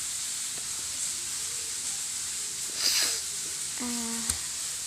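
Food sizzling steadily as it cooks, with a louder hiss about three seconds in and a sharp click near the end.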